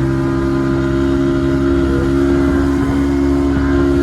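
Boat engine running at a steady, even speed.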